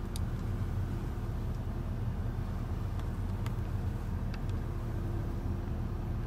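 2015 Toyota Corolla's engine idling, heard from inside the cabin as a steady low hum, with a few faint clicks a little past the middle.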